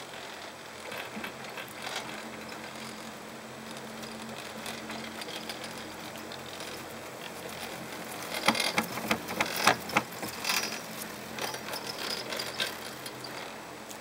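Pair chairlift in motion: a steady background noise, then a rapid run of clicks and clatter about eight seconds in, lasting a couple of seconds and trailing off, as the chair's grip rolls over a lift tower's sheave wheels.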